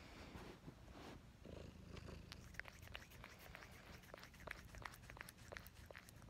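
Orange tabby cat purring steadily at close range, with many small crackling clicks from about two seconds in as its face rubs against the phone.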